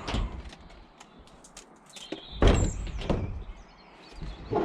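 A door shutting with a heavy thud about halfway through, followed by a short rumble, with small knocks and rustles around it.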